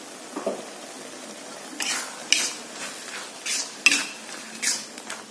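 Metal spatula scraping and tossing food around a wok in about six sharp strokes, starting about two seconds in, over a faint steady sizzle of frying vegetables and meatballs.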